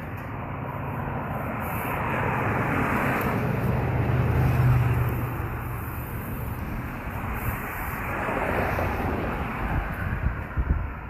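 Engine noise passing by, growing louder to a peak about four to five seconds in and then fading, with a second, weaker swell near the end and a few light knocks.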